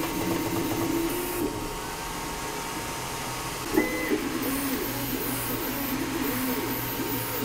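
Anycubic Kobra S1 CoreXY 3D printer printing, its motors whining over a steady hiss. The tone holds steady for the first second and a half, goes quieter, then after a brief click about halfway the pitch rises and falls over and over as the head moves.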